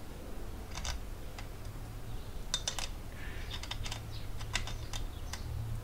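Small metal clicks and taps, in scattered clusters, as a multi-tool blade's metal mount is fitted onto an oscillating multi-tool's head by hand, over a low steady hum.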